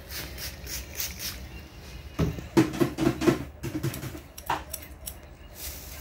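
A barber's comb and scissors working on hair close to the microphone: light combing and snipping strokes, then a louder run of rapid scratchy strokes about two seconds in that lasts under two seconds.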